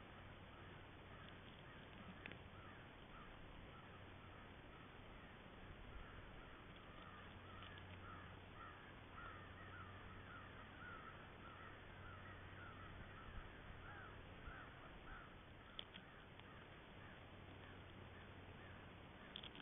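Faint bird calls, a quick series of short notes repeated a few times a second, densest in the middle, over a low steady hum.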